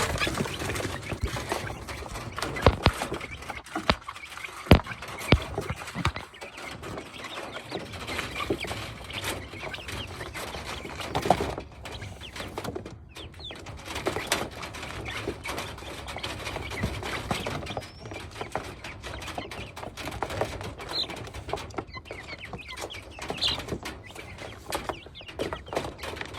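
Wyandotte chickens clucking and chirping while they peck at and grab mulberries, with scattered sharp taps and clicks from their pecking and scuffling.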